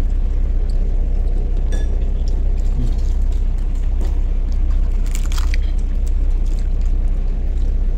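Steady low drone of a houseboat's engine, with a few faint clicks about the middle.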